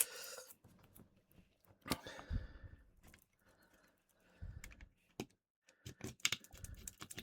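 Small plastic clicks and taps of handling a headphone earcup and a pry tool, scattered irregularly with a few dull knocks, after a short tearing rasp at the very start as the battery's adhesive lets go.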